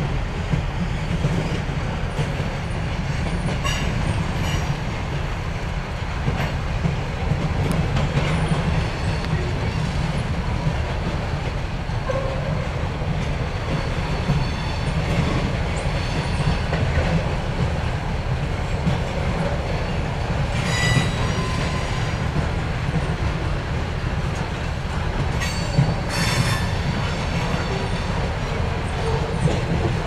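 Freight cars rolling past on the rails: a steady low rumble of steel wheels with clickety-clack over the rail joints. Several brief high wheel squeals cut in, the strongest about 21 and 26 seconds in.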